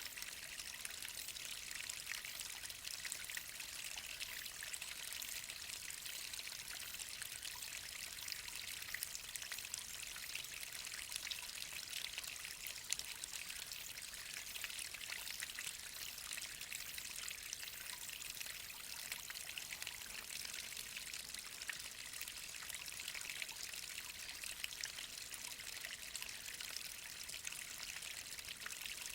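A waterfall about 20 m high: a steady rush and splash of falling water, mostly a high hiss of spray that runs on unbroken.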